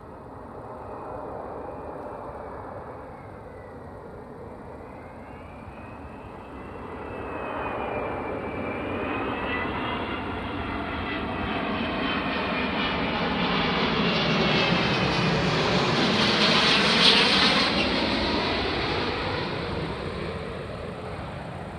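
Jet engines of a Boeing 777 airliner on final approach with its landing gear down, growing louder as it passes low overhead, loudest about three-quarters of the way through, then fading. A high whine wavers in pitch over the engine rush.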